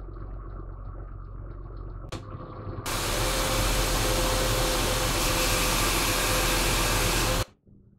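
Honda Accord being started and run from inside the cabin: a low steady hum, a click about two seconds in, then a loud steady hiss with a faint steady tone while the steering wheel is turned toward full lock. The sound cuts off suddenly near the end.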